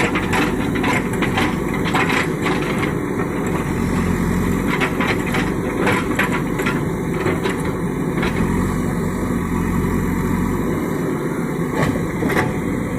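Diesel engine of a JCB 3DX backhoe loader running steadily under work, with repeated sharp cracks and knocks in clusters, typical of the bucket digging and breaking earth and stones.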